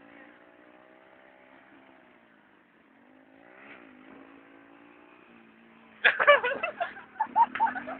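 Yamaha DT two-stroke motorcycle engine running at a steady idle, with two brief rises in revs, then loud, choppy, irregular sounds start about six seconds in.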